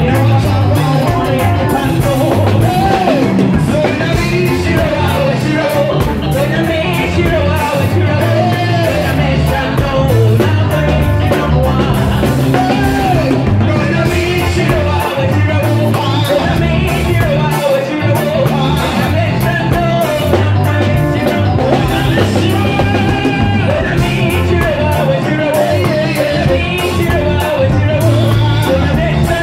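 Live band music played without a break: drum kit and keyboard keeping a steady beat, with a man singing lead through a microphone.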